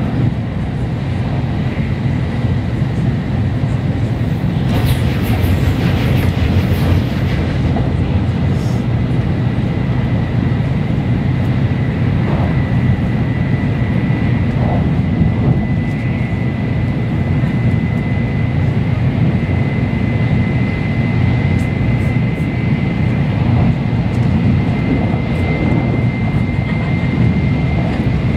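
Shinkansen bullet train running at speed, heard inside the passenger cabin: a steady deep rumble with a thin high whine that edges slightly up in pitch, and a brief hiss about five seconds in.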